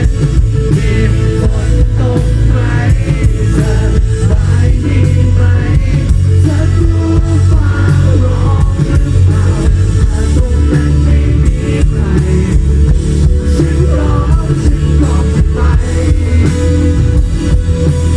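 A live pop-rock band plays steadily and loudly, with drums, bass guitar, guitar and synthesizer under a sung vocal melody.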